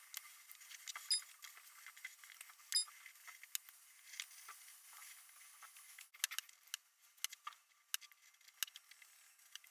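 Felt-tip pens marking paper: faint scratching strokes and scattered small taps of the pen tips.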